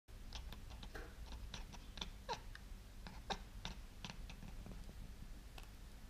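Cat chattering at birds: quick clicking with short chirps, two of them falling in pitch a little after two and three seconds in.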